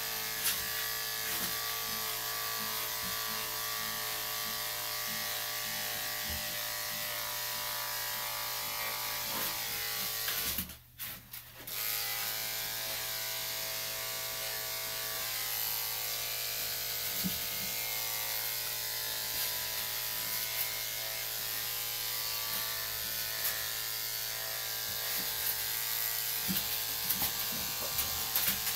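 Electric dog-grooming clippers running steadily, clipping a dog's coat. The clippers cut out for about a second near the middle, then run again.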